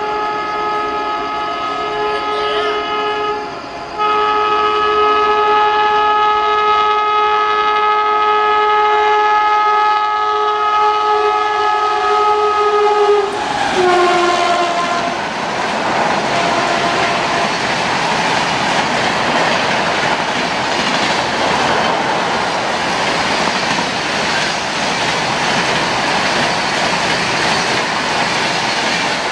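A passing train's multi-tone locomotive horn sounds, a short blast and then a long held chord, and its pitch drops suddenly as the locomotive goes by. The train then rushes past at speed with loud, steady wheel clatter.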